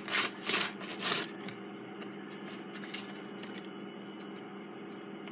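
Mail packaging being torn and rustled open: three loud crinkly bursts in the first second and a half, then faint handling clicks over a low steady hum.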